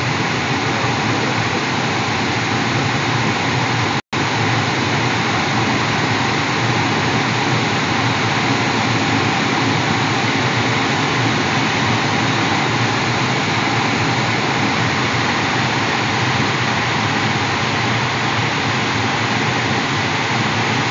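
Steady rush of air streaming over a glider's canopy, heard from inside the cockpit. It drops out for an instant about four seconds in.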